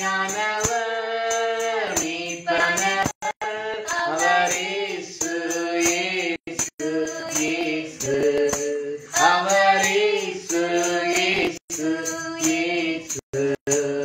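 A man singing a Tamil worship song, long held notes that glide between pitches. The sound cuts out completely for a split second several times.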